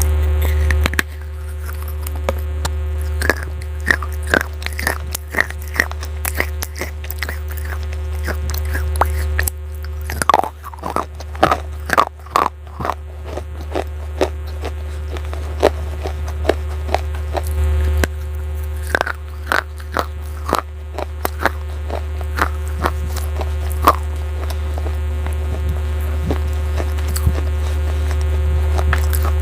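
Someone biting and chewing pieces of baked clay pot: a run of sharp, brittle crunches and crackles, thickest about ten to thirteen seconds in. A steady low hum runs underneath.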